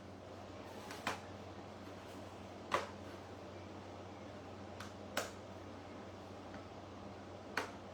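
Five or so short, sharp clicks and taps, spaced irregularly, over a faint steady hum: small hard objects being handled and set down on a work table.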